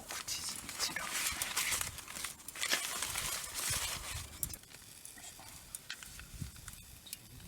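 Rustling and crinkling handling noise in a run of irregular bursts, dying down to a quiet background about four and a half seconds in.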